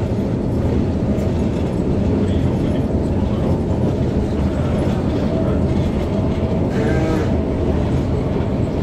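Carriage of the Schynige Platte rack railway running and rattling, a steady rumble heard from on board. About seven seconds in, a brief wavering higher-pitched sound rises over it.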